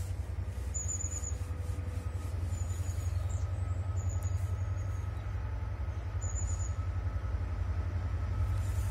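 A freight locomotive approaching from a distance, heard as a steady low rumble, with a faint steady higher tone joining about a third of the way in. Short high bird chirps come several times over it.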